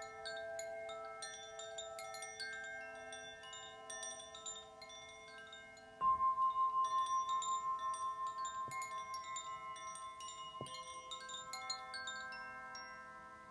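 Crystal harp, crystal bowl and Shanti chime music: several sustained, ringing crystal tones overlap under a scatter of small, high chime tinkles. About six seconds in a clear new tone is struck loudly and rings on with a slow pulsing as it fades.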